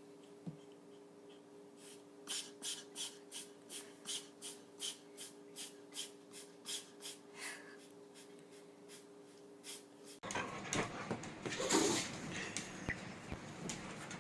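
A dog breathing in quick, even, airy puffs, about three a second, for several seconds over a faint steady hum. After a cut, a noisier background with a brief louder burst of noise a little before the end.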